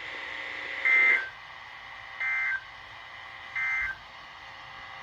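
Emergency Alert System end-of-message data bursts: three short, shrill two-tone digital squawks, evenly spaced about a second and a third apart, the first the loudest, marking the end of the alert.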